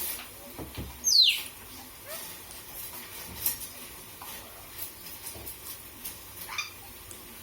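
Pet talking bird giving one sharp whistle that falls steeply in pitch about a second in, then a shorter falling call near the end, among faint clicks and scratches.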